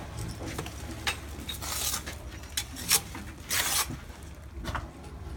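Mason's trowel scraping through wet mortar in several short, uneven strokes.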